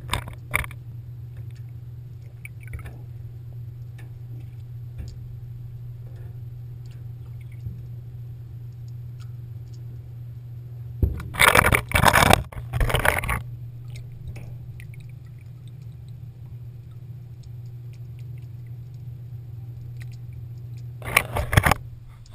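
Muffled underwater sound heard through a GoPro's waterproof housing: a steady low hum, broken by loud scraping and knocking on the housing about 11 to 13 seconds in and again near the end.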